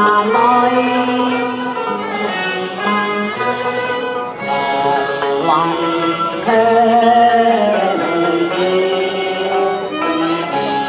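Chinese opera (xiqu) singing with bowed-string accompaniment over a loudspeaker, the voice holding long notes that bend in pitch.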